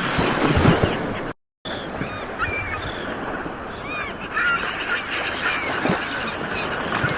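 Ocean waves breaking and washing in, louder in the first second, with many short, high bird calls scattered over them. The sound drops out completely for about a quarter of a second, about 1.4 seconds in.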